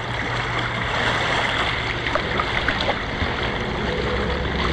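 Fast tidal current churning and rushing around a concrete bridge piling: a steady wash of moving water, with a few small splashes near the middle.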